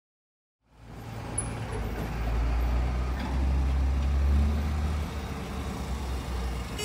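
A vehicle engine running: a steady low rumble that starts after a brief silence about a second in, loudest in the middle.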